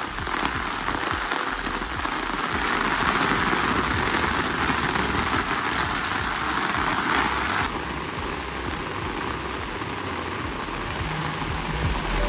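Heavy rain pouring steadily as an even hiss. About eight seconds in, the hiss becomes a little thinner.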